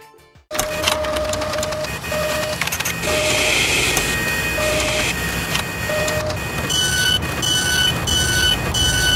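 Machine sound effect for an animated mechanism: a steady mechanical running noise with clicks and short electronic beeps, starting about half a second in. Near the end it turns into a regular two-tone beeping, about two beeps a second.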